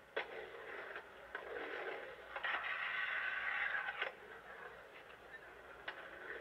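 Skateboard wheels rolling on a concrete bowl, swelling to a louder grinding rush for about two seconds in the middle that ends in a sharp clack, with a few other clacks of the board on the concrete. The sound is thin and muffled, as on old videotape.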